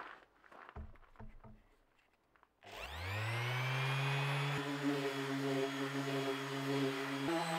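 Makita random orbital sander switched on about a third of the way in, its motor spinning up with a rising whine and then running steadily as it sands a painted panel; its tone shifts near the end. A few soft knocks come before it starts.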